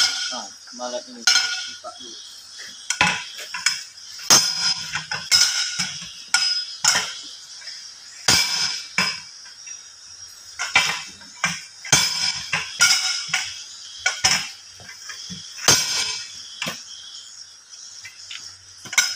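A long steel bead-breaker bar driven down again and again between a tubeless truck tyre's bead and its steel wheel rim, each stroke a sharp metallic clank with a short ring, at an irregular pace of roughly one a second. It is the work of breaking the tyre bead loose from the rim.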